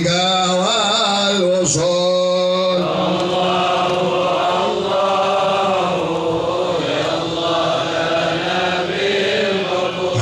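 Arabic devotional chanting (sholawat): a voice holding long, wavering melodic notes over a steady low drone.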